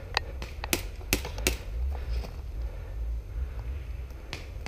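Airsoft pistol shots, about five sharp cracks: four within the first second and a half and one more near the end.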